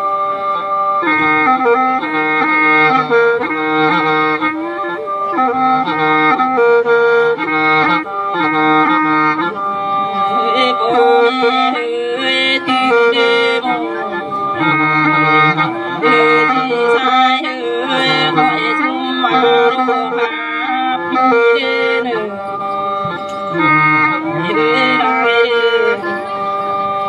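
Lự folk song sung into a microphone over a PA: an ornamented melody with sliding pitches over a steady, sustained accompaniment. The voice comes in about a second in and drops out about a second before the end, leaving the held accompaniment.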